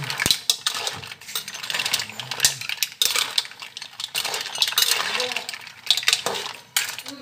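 Metal cooking utensil clinking and scraping against a cooking pan in a quick, irregular series of knocks and scrapes.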